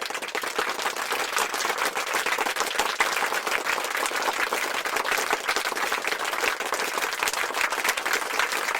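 Crowd applause: many hands clapping at a steady level.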